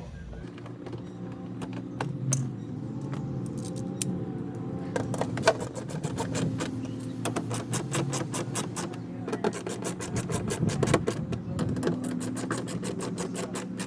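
A small power driver running steadily while screws are driven in, with rapid clicking that grows dense from about five seconds in.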